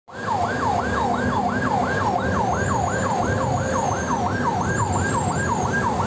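Emergency vehicle siren on a fast yelp, each sweep climbing quickly and falling back, about two and a half a second, over the low rumble of a vehicle on the road.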